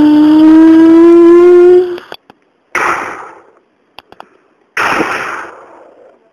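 A child's voice holding one long, loud, steady note until about two seconds in, then two sudden hissing bursts, each fading out over about a second.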